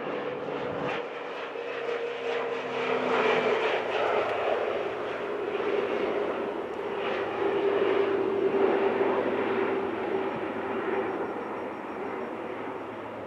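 Air Tractor AT-602 crop duster's Pratt & Whitney PT6A-60AG turboprop engine and propeller passing low and fast. It is a steady drone with a whine that slides slightly lower as it goes by, growing loudest in the middle and fading near the end.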